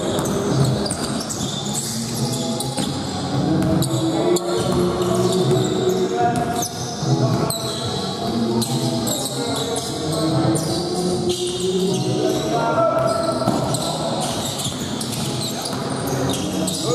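A basketball game in a large gym: the ball bouncing on the court, with many short sharp sounds and players' voices scattered throughout.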